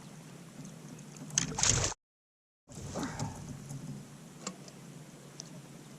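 Water and handling noises around a fishing kayak: a short loud rush of noise about a second and a half in, then a brief gap of dead silence, then quieter water sounds with scattered light clicks.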